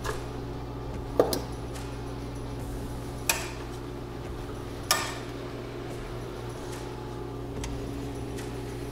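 A few sharp metal clinks, a second or two apart, as steel rifle receiver and bolt parts clamped in a vise are handled and knocked together, over a steady electrical hum.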